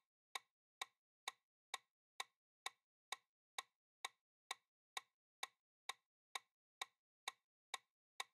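Countdown timer sound effect: short, even clock-like ticks at about two a second.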